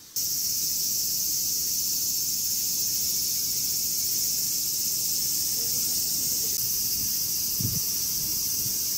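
A chorus of cicadas in summer trees: a steady, loud, high-pitched drone that begins abruptly, over a low rumble, with a brief low thump near the end.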